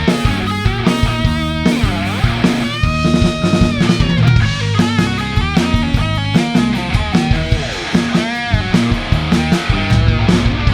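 A live rock band playing an instrumental passage: electric guitar with some bending notes over bass and a drum kit keeping a steady beat.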